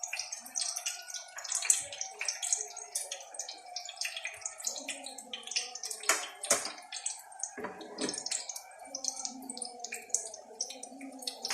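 Hot oil crackling and popping irregularly as small birds fry in a pan.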